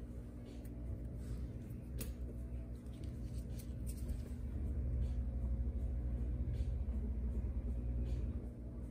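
A low steady hum, with scattered faint sharp clicks of a metal cuticle nipper working at a toenail.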